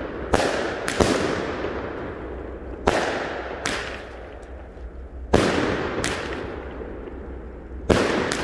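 Four 16-shot 'Creepy Freak Show' fireworks cakes chained together and firing: about six sharp shot reports at uneven gaps of one to two seconds, each followed by a long fading tail.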